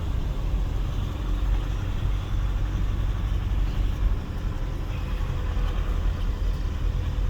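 Turbocharged Nissan pickup engine pulling steadily under load on a long uphill climb: a constant low rumble with road noise.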